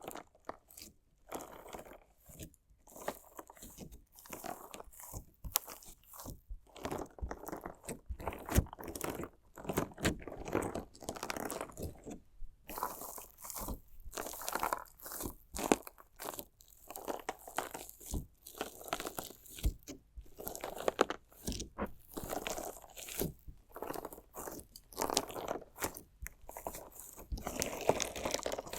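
Crunchy slime with decorative interior stones being worked close to a binaural microphone: a dense, irregular stream of crunches and sharp little clicks.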